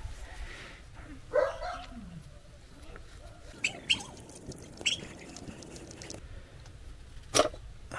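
An animal call about a second and a half in, a short sliding cry, followed by a few brief high chirps around four and five seconds. A single sharp click comes near the end.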